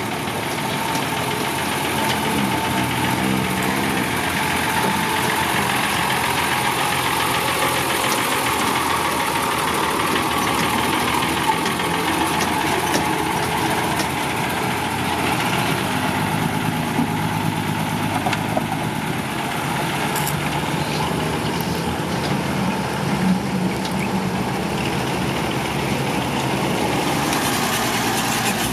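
Heavy diesel engine running steadily at low revs.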